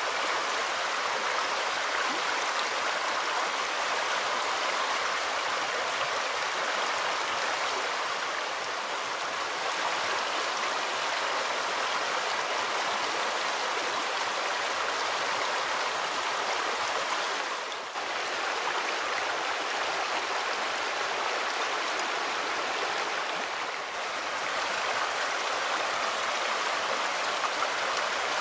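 Fast-flowing stream rushing steadily over stones, dipping briefly twice.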